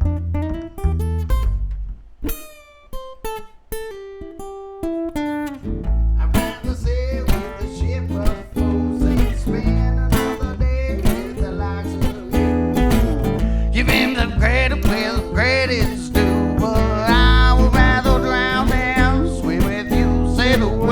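Live acoustic-guitar band playing an instrumental song intro. It thins to single picked guitar notes about two seconds in, and the full band comes back in about six seconds in.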